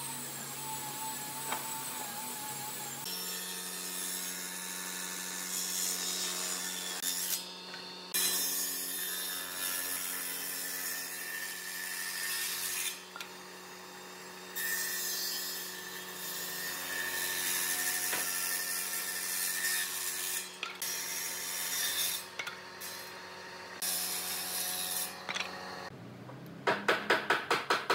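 Table saw on an old combination woodworking machine running with a steady motor hum while it rips pine boards, the cutting noise starting and stopping several times. Near the end the motor spins up with a rising pitch, and a fast run of loud knocks follows.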